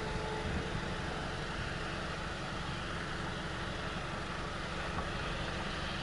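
Steady low rumble and hiss of a car heard from inside its cabin while the vehicle is running.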